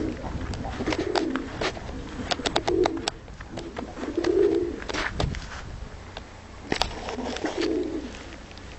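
Domestic tumbler pigeons cooing, a low murmuring phrase every second or two, with scattered sharp clicks and taps in between.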